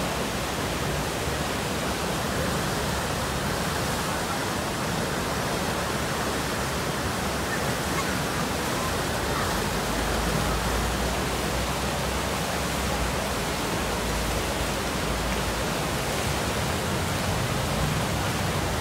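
Steady rushing of churning whitewater from the Eisbach's standing river wave, a dense, unbroken water noise.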